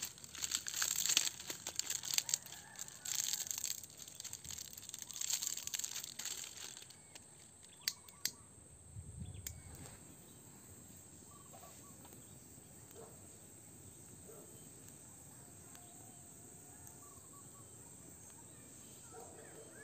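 Dry leaf stalks and twigs rustling, crackling and snapping as they are handled to build a wood fire, for about the first seven seconds. Then it goes quiet apart from a couple of sharp clicks and faint bird chirps.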